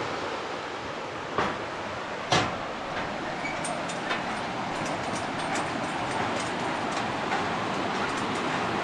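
Steady rushing of a rocky mountain stream's rapids, with footsteps knocking and ticking on a steel mesh suspension-bridge deck; two sharper knocks come in the first few seconds.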